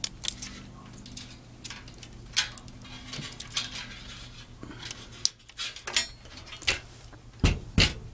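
Handling noise from the opened computer case: a string of light metallic clicks and clinks, with a few louder knocks near the end.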